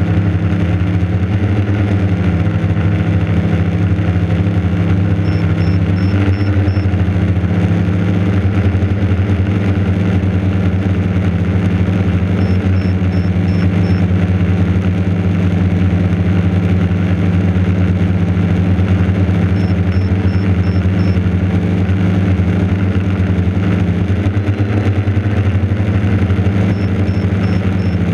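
Quadcopter motors and propellers buzzing steadily, picked up close by a GoPro mounted on the airframe. The pitch dips and rises slightly a few times with throttle changes.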